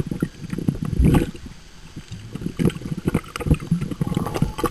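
Water splashing and sloshing in irregular bursts, with the loudest surge about a second in.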